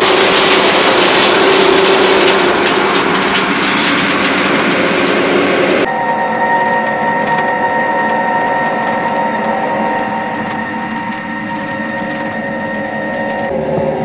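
Heavy farm machinery running, heard as a loud, dense mechanical noise. About six seconds in it cuts abruptly to a steadier running sound with a steady whine.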